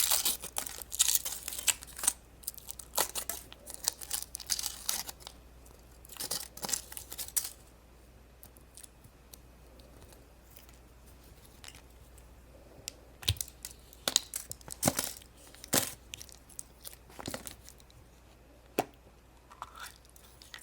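Foil wrapper of a chocolate surprise egg being torn and crinkled off in a dense run of crackles, followed after a short lull by scattered sharp clicks and crackles.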